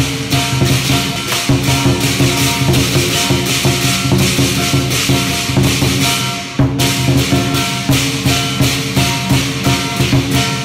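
Lion dance percussion: drum, clashing cymbals and gong beating a fast, steady rhythm, with the cymbals breaking off briefly about six and a half seconds in.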